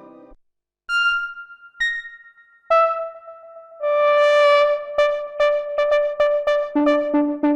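Expressive E Osmose 49 synthesizer played: a sustained chord fades out, then after a brief pause three single held notes sound about a second apart, each higher or lower in turn. About four seconds in a held note comes in under a quick repeated figure of short notes, about two or three a second, with a lower note joining near the end.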